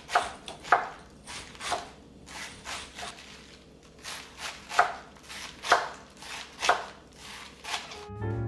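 Large kitchen knife chopping green cabbage on a wooden cutting board, a dozen or so uneven strokes about one or two a second. Music comes in near the end.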